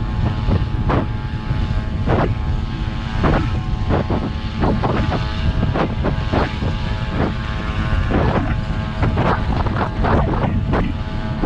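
Tractor engine running steadily, a low drone with many short irregular knocks and clatters over it.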